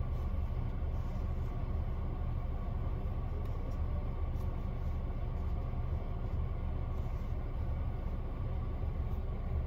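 Steady low rumble of a car engine idling, heard inside the cabin.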